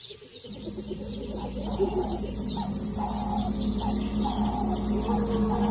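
Outdoor wildlife ambience fading in: a steady, high insect drone with many short, repeated bird chirps over it.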